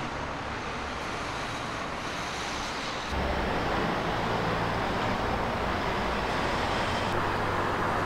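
Steady road traffic noise, cars passing over a town bridge, getting a little louder about three seconds in.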